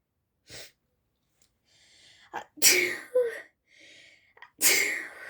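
A person sneezing again and again, set off by sneezing powder: a short sneeze about half a second in, then two loud sneezes about two seconds apart.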